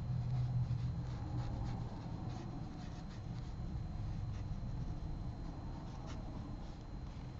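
Large synthetic watercolor brush stroking and dabbing paint onto paper, heard as faint soft scratches, over a low steady hum.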